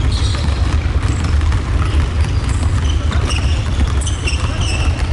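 Basketballs bouncing and sneakers squeaking on a gym floor during a team drill, over a steady low rumble.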